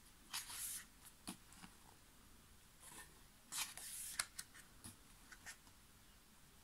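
Paper pages of a thick album photobook being turned by hand: faint swishes and rustles of paper, the longest about three and a half seconds in, with a few light clicks between them.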